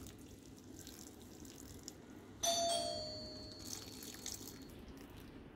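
Water poured from a paper cup, faintly trickling and splashing onto loose soil in a cut plastic bottle. About two and a half seconds in, a single bell-like ding sounds and fades away over a second or two, louder than the pouring.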